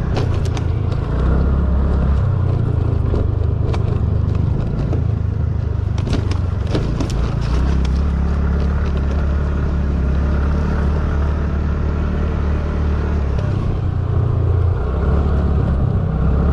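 A TVS Ntorq scooter's engine running as it rides at speed down a bumpy dirt track, under heavy wind rumble on the microphone. A few sharp knocks come from the bumps, once just after the start and in a cluster around six to seven seconds in.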